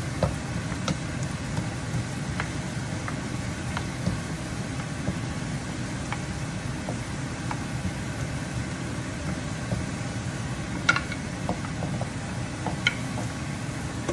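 Wooden spoons scraping and tapping a nonstick wok while minced aromatics fry, with a couple of sharper knocks near the end, over a steady low whir.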